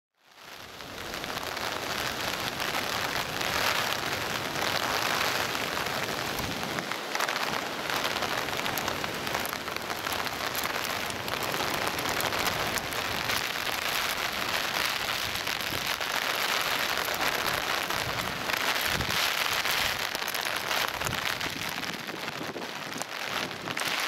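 Heavy typhoon rain and storm wind, a dense steady rushing hiss that swells and eases now and then.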